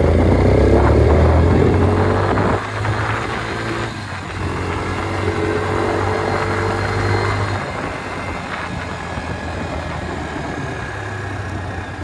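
Quad bike (ATV) engine running as it is ridden along a gravel track. The engine is loudest for the first couple of seconds, then its note drops about two and a half seconds in and again around seven seconds in.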